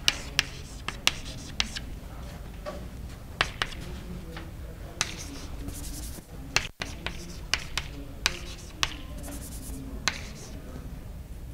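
Chalk writing on a blackboard: sharp chalk taps at irregular intervals, with a few short scratchy strokes.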